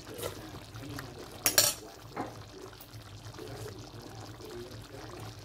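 Creamy mushroom sauce bubbling at a simmer in a wide pan, small pops over a steady low hum, with a couple of sharp louder clicks about a second and a half in.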